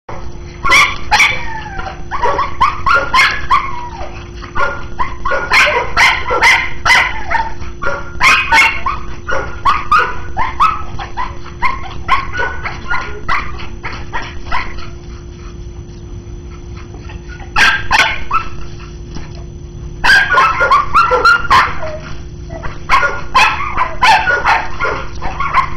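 A young dog barking and yipping excitedly in rapid bursts while chasing a flirt-pole lure in play, with a quieter lull past the middle.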